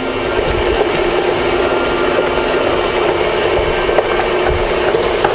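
Electric mixer running steadily, beating a thin liquid batter of eggs, molasses, oil and water.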